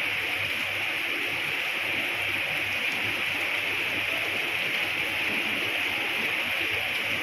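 Steady rain falling, a constant even hiss with no letup.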